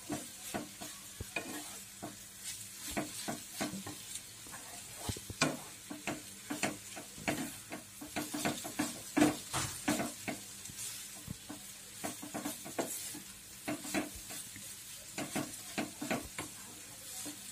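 Flat spatula stirring and scraping grated sweet potato frying in ghee in a non-stick kadhai: irregular scrapes and taps several times a second over a steady sizzle.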